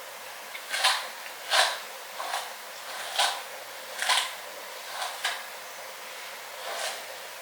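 Hair being brushed: a series of short, scratchy brush strokes, roughly one a second.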